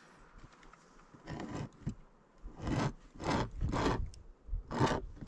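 A pointed hand tool scratching and grinding into wood siding in about five short rasping strokes, starting about a second in, as screw holes are marked out for a mounting plate.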